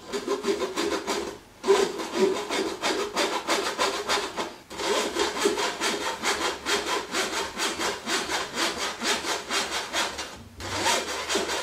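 Lumpy icing sugar being rubbed and scraped through a fine metal mesh sieve by hand: fast, rhythmic rasping strokes with three short pauses. The sugar is chunky and has to be forced through the mesh.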